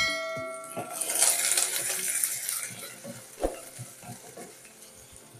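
A short bell-like chime rings for about a second at the start. Then sliced onions sizzle in hot coconut oil, the sizzle fading, while a wooden spatula knocks and scrapes against the enamel pot as they are stirred.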